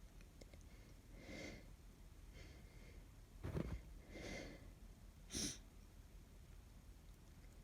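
A woman with a cold breathing in heavily and sneezing twice, short sharp sneezes about three and a half and five and a half seconds in.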